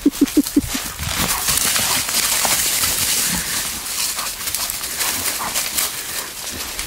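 A quick run of short animal calls, about eight a second, dies away in the first second. Then a dog and a wild boar run and scuffle through dry leaves and brush, a steady rustling with scattered thuds and snapping twigs.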